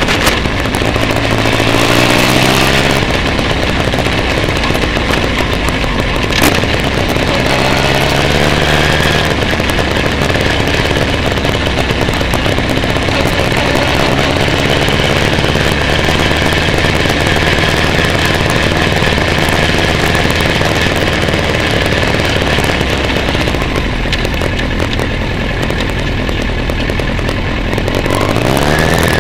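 Motorcycle engine heard from a bike-mounted camera with wind noise, revving up in pitch as it accelerates a couple of times, then running steadily and rising again near the end. A single sharp click about six and a half seconds in.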